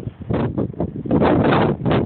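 Wind buffeting the camera's microphone in uneven gusts, a rough rumbling noise that swells and drops several times.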